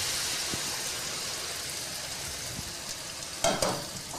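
Julienned vegetables sautéing in a frying pan: a steady sizzle that slowly eases. About three and a half seconds in come two sharp metal clanks of cookware on the stove.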